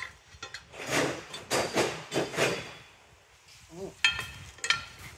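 Steel pry bar worked against the stuck cast-iron ring on an excavator swing motor, scraping and grating for a couple of seconds. Then comes a sharp ringing metal clank about four seconds in, and a second one shortly after.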